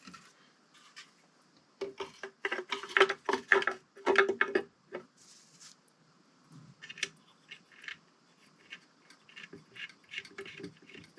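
Quick small clicks and taps in two spells, from hand work on the air horn's mounting bolt and hardware.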